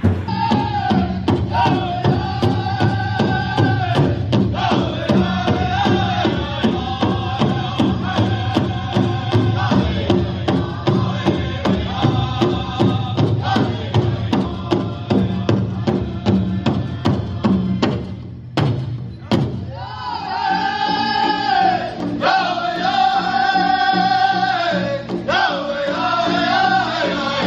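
Powwow drum group singing: a steady beat on a large drum under chanted vocal lines. The song breaks off briefly about two-thirds of the way through, then singing and drumming resume.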